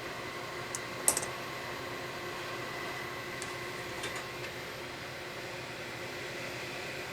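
A few sharp clicks and taps of hard objects being handled: a small cluster about a second in is the loudest, with lighter ones a few seconds later. Under them runs a steady hum and hiss.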